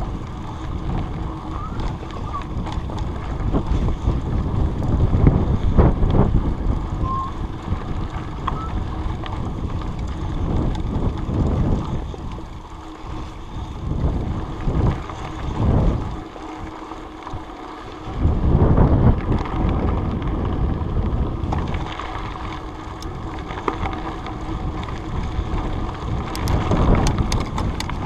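Wind buffeting and rumbling on a chest-mounted GoPro's microphone during a mountain bike ride over a dirt trail, with scattered clicks and rattles. The noise drops off briefly about two-thirds of the way through, then picks back up.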